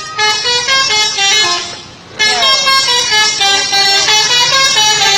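Melodic multi-tone vehicle horn playing a tune of quick stepped notes. It breaks off briefly about two seconds in, then starts again.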